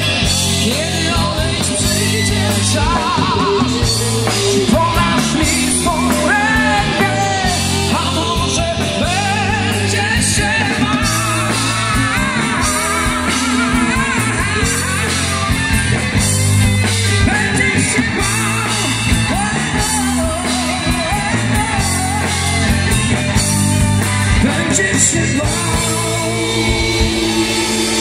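Live rock band playing: electric guitars, bass guitar and drum kit, with a sung melody line over them, at a steady, loud level.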